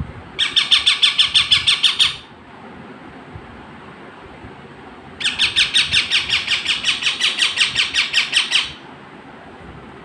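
A pet green parrot giving a rapid run of squawking calls, about eight a second, in two bouts: a short one at the start and a longer one of about three and a half seconds midway through.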